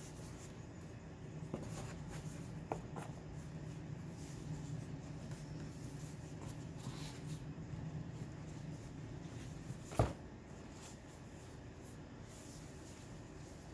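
Quiet handling of items in a box: light rustles and small clicks, then one sharp knock about ten seconds in, as of an object set down on a hard surface. A low steady hum runs underneath until about the knock.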